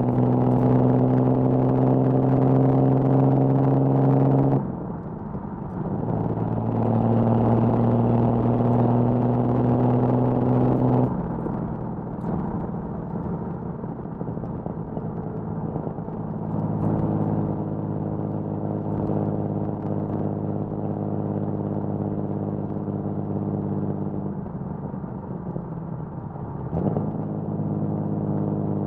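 1979 Datsun 280ZX's L28 inline-six on triple Weber carburettors, heard through an HKS Hi-Power exhaust behind a 6-2-1 header, driving at steady revs. It runs loud under load, drops away briefly about five seconds in, pulls loud again, then from about eleven seconds on runs at a quieter steady cruise, with another short dip near the end.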